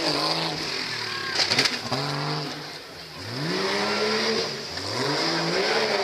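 Tough truck's engine revving hard several times as it drives the dirt course, its pitch climbing with each burst, with a brief lull near the middle.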